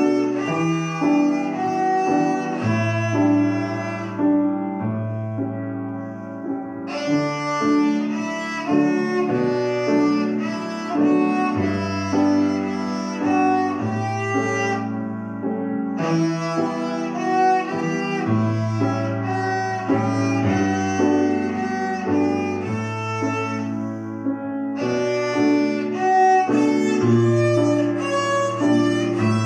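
A child playing a piece on the violin with piano accompaniment. The violin pauses briefly a few times while the piano keeps playing.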